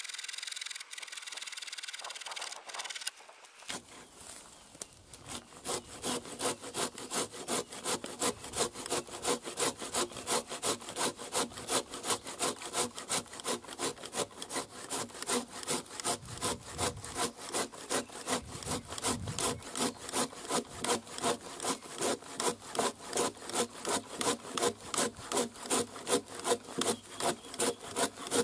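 An old Oregon hand saw cutting through a fallen green branch with steady back-and-forth strokes, about two a second. The sawing starts about three and a half seconds in.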